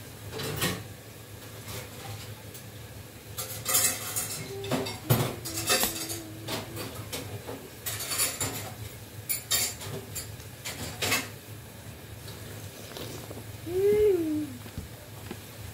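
A metal spoon clinks and scrapes against a glass bowl of watermelon punch as a child scoops from it, with several separate clinks. Near the end comes a short hum that rises and falls.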